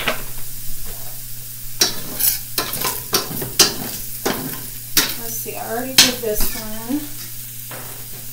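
Shrimp sizzling in a stainless steel skillet while a metal spoon stirs them, clinking and scraping against the pan in a run of sharp clicks from about two seconds in until past six seconds.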